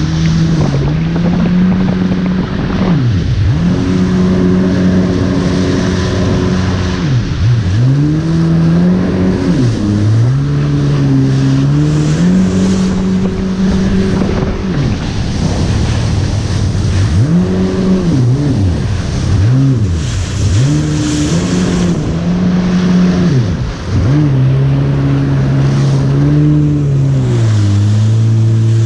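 Jet ski engine running at speed, its revs dropping sharply and climbing back again a dozen or so times as the throttle is eased and reopened, with water spray and wind rushing over the microphone.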